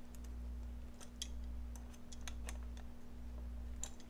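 Slip-joint pliers working the nut on a panel-mounted toggle switch: a handful of small, sharp metal clicks at irregular intervals, over a low steady hum.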